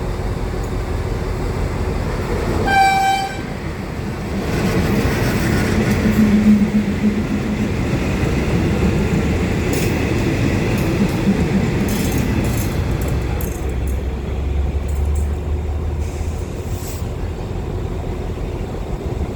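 Diesel-hauled passenger train arriving at a station: one short horn toot about three seconds in, then the steady rumble of the locomotive and carriages rolling in, with occasional sharp clicks from the wheels on the rails.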